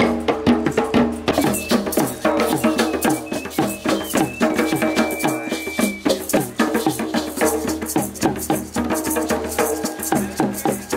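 Djembe hand drums played together in a fast, steady rhythm.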